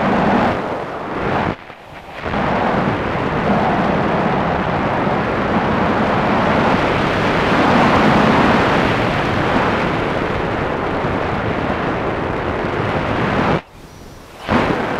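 Wind rushing and buffeting over the microphone of a camera mounted on a flying RC plane, a loud rumbling rush that drops away sharply for a moment about a second and a half in and again near the end.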